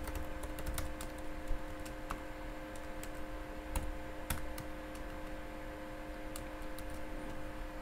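Computer keyboard typing: scattered, irregular keystrokes over a faint steady hum.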